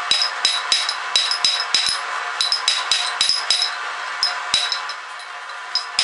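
Hand hammer striking a red-hot steel wrench on a steel anvil in quick, steady blows, about three a second, each with a bright metallic ring. The blows pause for about a second near the end, then start again.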